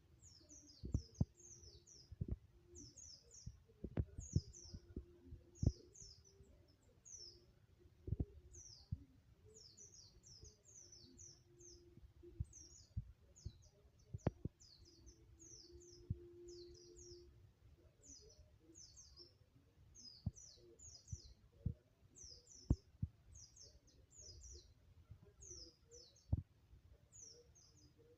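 White-eye (pleci) singing quick, high, down-slurred chirps in rapid clusters, practising the ngalas song style. Sharp knocks sound at intervals underneath.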